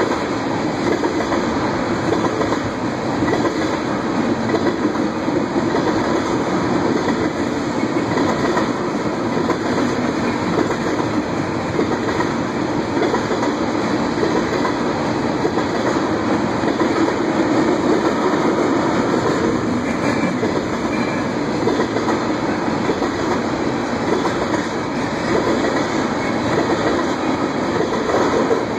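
A freight train of ethanol tank cars rolling steadily past, its steel wheels running on the rails.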